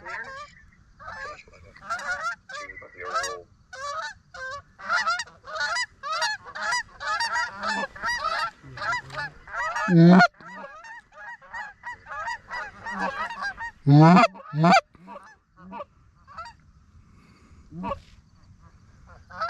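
Canada geese honking and clucking as a flock circles in to decoys. Overlapping calls are dense through the first half. A few very loud, close honks come around ten and fourteen seconds in, then the calling thins to scattered honks.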